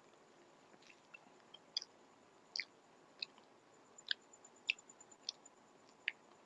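A person chewing food close to the microphone: a faint, irregular run of short wet mouth clicks and smacks.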